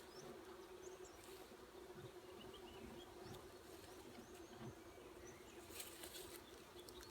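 Faint steady hum of honeybees buzzing around an open hive, with a few faint bird chirps.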